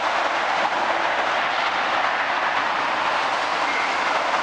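Osaka Monorail 1000 series straddle-beam monorail train, field-chopper controlled, running toward the station on its concrete guideway: a steady rushing of rubber tyres and running gear, with a faint high whine near the end.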